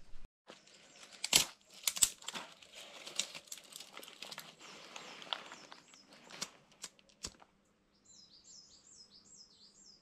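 Paper and kindling being crumpled and handled to light a small camp fire: crinkling and rustling with several sharp snaps. About eight seconds in, a small bird gives a quick run of high, swooping chirps.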